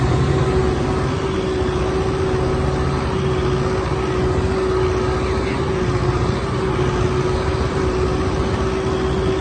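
Kubota rice combine harvester's diesel engine running steadily under load, with a steady hum riding over its low rumble.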